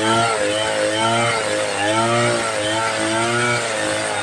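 Two-stroke chainsaw running hard while cutting timber, its engine pitch dipping and recovering again and again, every half second or so, as the chain bites.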